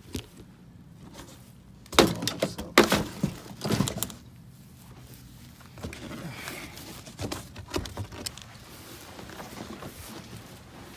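Clatter of gear being handled and set down: a quick run of sharp knocks and thuds about two to four seconds in, then a few scattered knocks later on.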